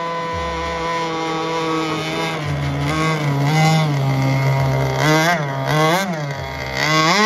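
Redline 29.5 Pro Mod two-stroke gas engine of a 68-inch radio-control unlimited hydroplane running on the water. It holds a steady pitch at first, then wavers, surges up and down three times quickly about five to six seconds in, and revs up sharply near the end.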